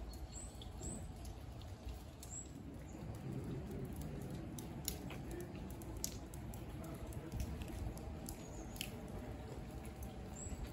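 Light rain outdoors: scattered raindrops ticking and dripping over a low steady background, with a few faint high-pitched chirps.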